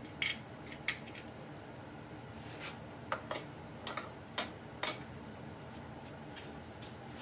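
Irregular light clicks and taps of hand tools and parts being handled, about a dozen scattered through, over a faint steady hum, while the compression gauge is moved between cylinders.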